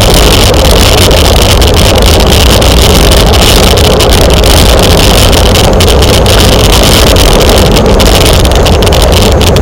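Loud, steady wind rush buffeting the microphone of a camera riding along on a racing bicycle at speed.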